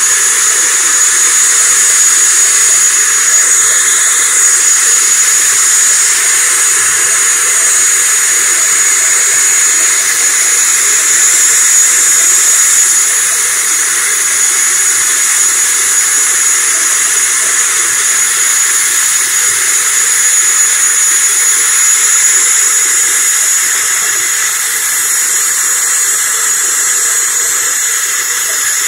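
Turbine engine of an ATR turboprop airliner running on the ground: a steady high whine over a loud rushing hiss.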